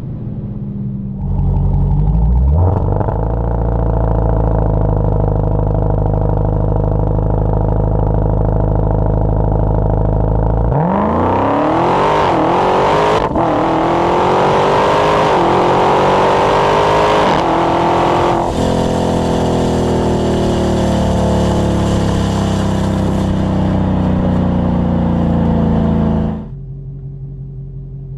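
Supercharged car engine with its supercharger whining: it runs steadily at first, then revs up about eleven seconds in with the whine climbing sharply. The whine holds high for several seconds, winds down gradually, and cuts off suddenly near the end.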